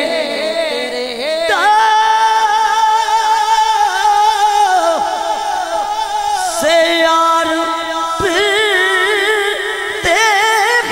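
A man singing a naat unaccompanied into a microphone, drawing out long wavering notes that slide from pitch to pitch.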